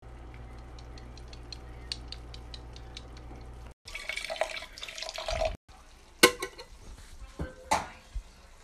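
Kitchen cooking sounds in short cut-together pieces. First a low steady hum with faint crackling from the pan, then a couple of seconds of louder splashing and clattering, then a few sharp knocks and clinks of cookware.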